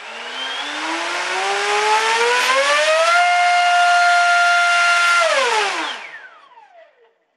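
Turnigy H3126 1300 kV brushless motor spinning an APC 7x8 pylon racer propeller on a thrust stand, run from a 5-cell pack at up to about 1400 watts: a whine that rises over about three seconds as the throttle opens, holds steady at full throttle for about two seconds, then falls away as the motor spins down.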